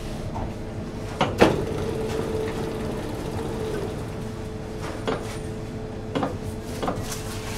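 Electric dough sheeter running with a steady motor hum as its rollers and conveyor belt roll out a sheet of tart dough. Several sharp clunks sound from the machine, the loudest about a second and a half in, and three smaller ones near the end.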